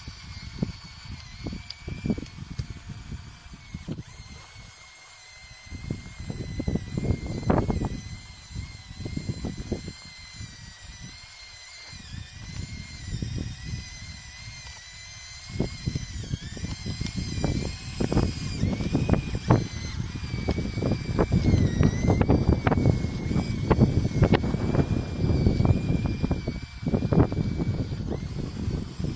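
Electric drive motors of a radio-controlled Bruder Cat D5 model bulldozer whining steadily, wavering in pitch as it drives, while its tracks and blade crunch and clatter through loose gravel. The crunching gets busier and louder about halfway through as it pushes dirt.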